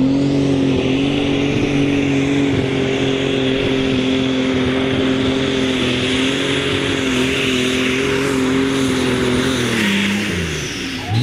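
Super Stock pulling tractor's engine at full throttle during a pull, holding a steady high, even note. About ten seconds in, the revs fall away.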